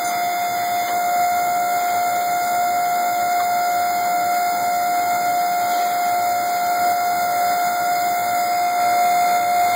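Bending machine giving off a loud, steady, unbroken tone with no change in pitch.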